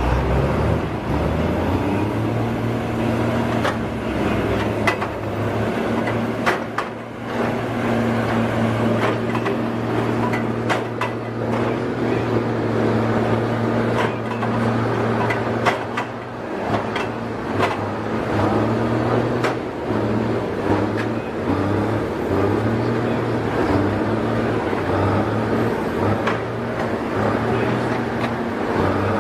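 An engine running steadily with a low hum that turns uneven for a few seconds past the middle, with scattered sharp knocks over it.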